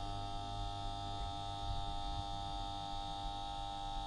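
Steady electrical hum made of several held tones, from a low hum up to a high whine, unchanging throughout.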